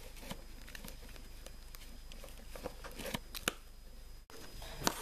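A metal blade cutting through a log of polymer clay onto a hard work surface: scattered faint clicks and taps, most of them bunched together about three seconds in, over a low steady hum.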